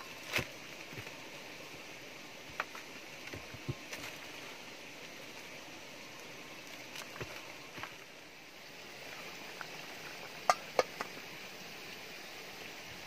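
A kitten pawing and clawing at a plastic-wrapped spool of raffia string inside a basin: scattered light taps and crinkles, with two sharper clicks close together near the end, over a steady background hiss.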